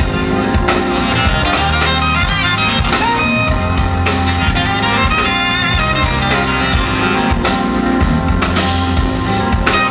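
Instrumental music with guitar and strings over a steady bass line.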